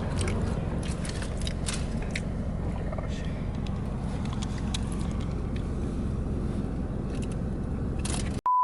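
Steady low rumble inside a car, with a few faint clicks and knocks; it cuts off abruptly near the end.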